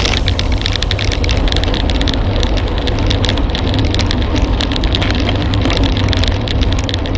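Wind buffeting and tyre noise picked up by a camera riding on a road bicycle at racing speed: a steady low rumble with a dense crackle over it.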